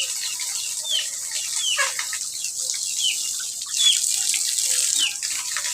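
Chicks peeping over and over, short high falling cheeps about twice a second, over a steady hiss that grows louder for a moment about four seconds in.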